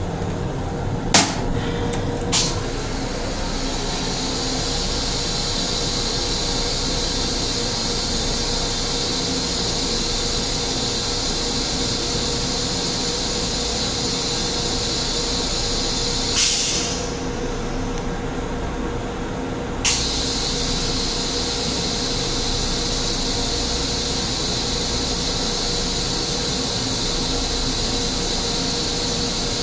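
Steady hiss and low hum of a Metro-North M7 railcar's ventilation and onboard equipment, heard inside its small restroom. Two sharp clicks come about a second and two and a half seconds in. Past the middle the high hiss drops away for about three seconds, then cuts back in with a click.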